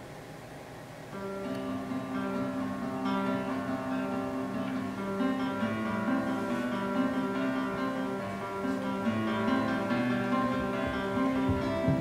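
Solo classical guitar playing a slow passage: after a quieter first second, a low bass note and chord come in about a second in, and the plucked notes ring on over one another.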